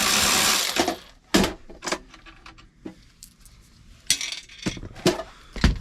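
Small metal nuts and washers clinking and clicking as they are taken off the inverter's terminal studs and handled. At the start a steady noise cuts off under a second in, and near the end comes a low thump.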